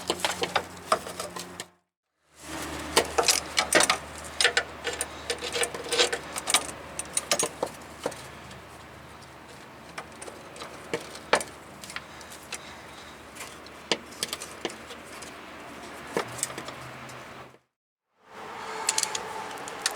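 Wrench and small metal parts clicking and clinking in irregular short taps while a brake line fitting is worked tight, with two brief cuts to dead silence.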